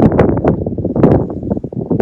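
Horse hooves clopping on the ground: a dense, irregular run of knocks.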